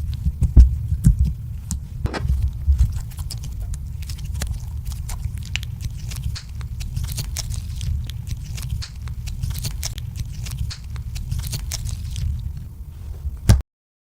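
Slime being kneaded and squished by hand, making many small sticky clicks and pops over a low rumble of handling. It cuts off suddenly near the end.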